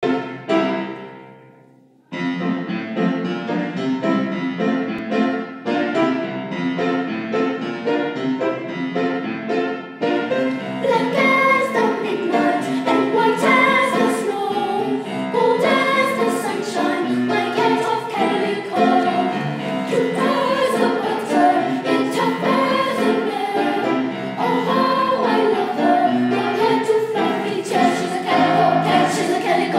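A girls' children's choir singing. A chord rings and fades over the first two seconds, then the singing starts and grows louder about ten seconds in.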